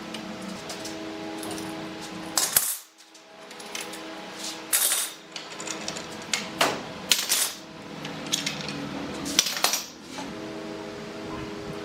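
A steady hum, broken about two and a half seconds in by a series of sharp clinks and knocks, roughly eight of them, after which the hum returns near the end.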